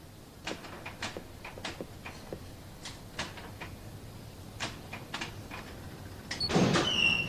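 Faint, scattered clicks and taps, a few to the second, then a louder rustling noise with a brief high squeak near the end.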